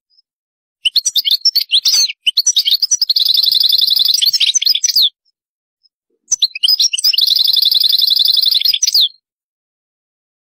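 European goldfinch singing: two phrases of fast twittering song, each with a long rapid trill held on one pitch in its middle. The first starts about a second in, the second about six seconds in.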